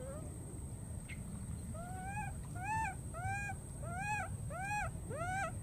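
Baby macaque crying out: a run of six short calls, each rising then falling in pitch, about one every two-thirds of a second, starting about two seconds in.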